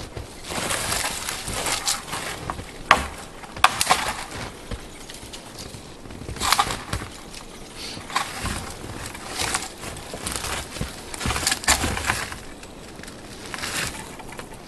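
Buck 119 fixed-blade knife chopping the branches off a dead tree: irregular woody strikes and snaps, with branches and twigs rustling between them. Two sharp cracks come about three and four seconds in.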